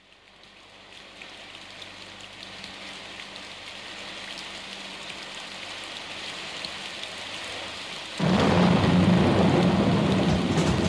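Recorded rain-and-thunderstorm sound effect fading in from silence and growing louder, with a louder, heavier rumble coming in suddenly about eight seconds in.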